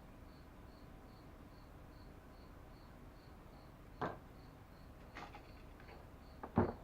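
A cricket chirping steadily, a short high chirp repeating about two and a half times a second. Two sharp clicks of handling break in, one about four seconds in and a louder one near the end.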